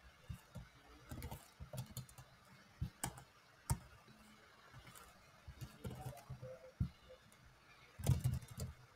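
Faint typing on a computer keyboard: irregular key clicks, with a louder flurry of keystrokes near the end.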